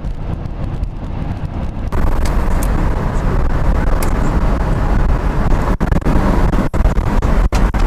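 Cabin road noise at highway speed: a steady low rumble inside a BMW X5, then after a cut about two seconds in, louder and hissier road and wind noise inside a BMW E30 convertible with its soft top up.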